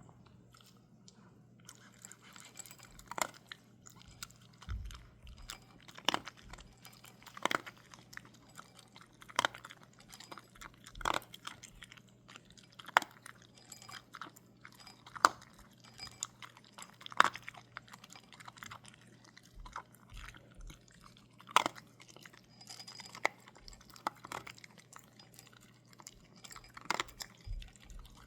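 Crunchy food being chewed, with sharp crunches every second or two over a faint steady hum.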